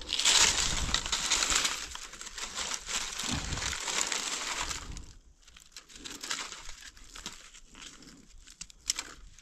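Dry fallen leaves crackling and rustling as gloved hands brush them aside and dig a button-stage Amanita mushroom out of the leaf litter. The crackling is loud for about the first five seconds, then turns to softer, scattered rustles.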